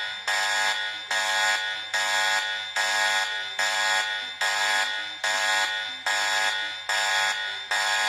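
Electronic emergency-alert alarm tone, a harsh buzz of many stacked pitches, repeating about every 0.8 seconds. Each pulse starts sharply and fades.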